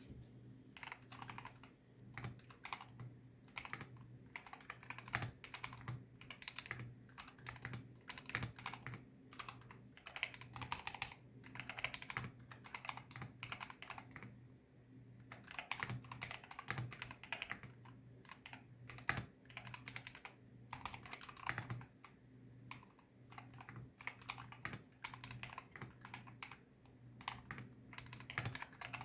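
Typing on a YC66 mechanical keyboard fitted with Akko Matcha Green switches: a quick, uneven run of keystroke clacks, with a brief pause about halfway through.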